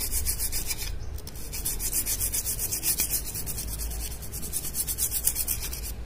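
A brush scrubbing a chemical-wet circuit board, the TV motherboard, in quick back-and-forth strokes that make a steady scratchy rasp. It is the sound of carbon deposits being scrubbed off the board.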